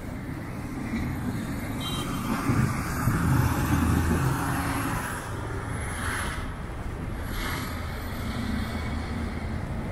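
City street traffic: a motor vehicle passes, its low engine rumble rising to its loudest about a third of the way in and then fading, followed by two brief hissing swishes of passing tyres.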